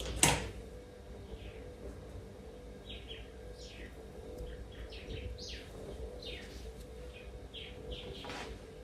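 Birds chirping, many short downward-sliding chirps coming every half second or so, with one sharp knock just after the start and a faint steady hum underneath.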